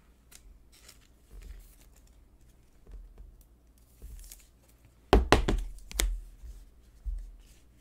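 Faint rustle of a trading card being slid into a rigid clear plastic card holder, then a few sharp knocks of the holder against the table about five to six seconds in, and one more near the end.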